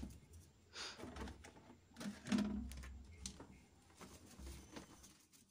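Rustling and light knocks of carrots and potatoes being handled in a cloth shopping bag and a plastic basket, in a few short, irregular bursts.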